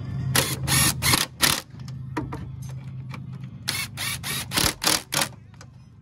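Makita 18V cordless impact wrench running the coilover's top-mount nuts down onto the strut-tower studs in short bursts: three in the first second and a half, five more between about four and five seconds in. The nuts are only being snugged, left loose for torquing later.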